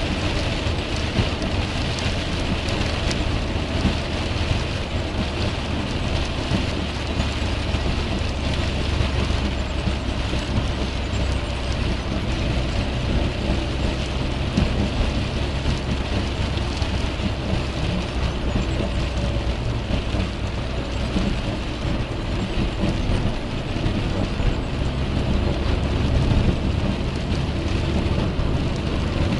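Rain pattering on a car's windscreen and roof, heard from inside the moving car over steady low road and tyre noise on the wet motorway.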